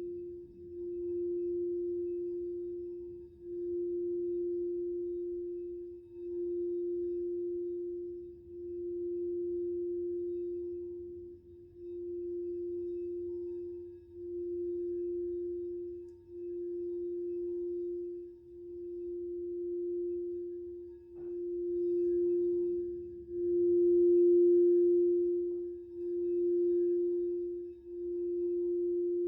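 Crystal singing bowl sounding one sustained, pure note that swells and fades in a slow, even pulse about every two seconds. The note grows louder a little past the middle, and there is a faint click about two-thirds of the way in.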